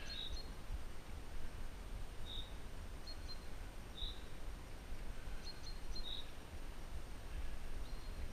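A bird calling in short high notes, one about every two seconds, over a low rumble of wind on the microphone.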